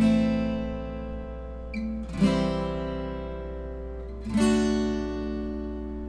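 Acoustic guitar strumming three chords about two seconds apart, each left to ring and fade, with a brief string scrape just before the second. A steady low hum sits underneath.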